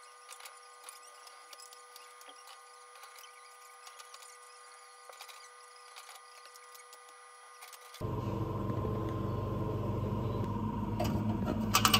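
Aluminium drink cans being loaded into a can vending machine's columns: faint light clicks and knocks over a steady high hum. About two-thirds of the way in, the sound switches suddenly to a much louder steady low hum, with a quick run of clinks near the end.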